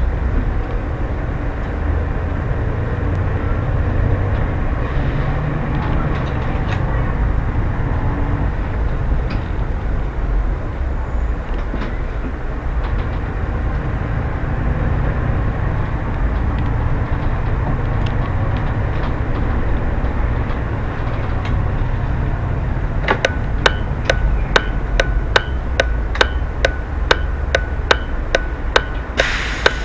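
City bus running, heard from inside the driver's cab as a steady low rumble while it pulls away. About three quarters of the way through, the turn indicator starts ticking regularly, about twice a second, as the bus turns at a junction.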